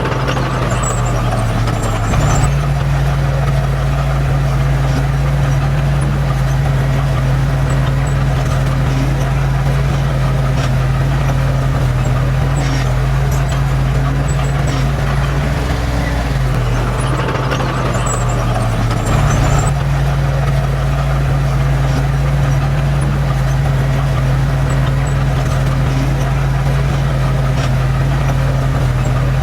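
Heavy diesel engine of an earthmoving machine running steadily under load. Its note shifts about two seconds in and again around the middle, with faint scattered clicks and clanks over it.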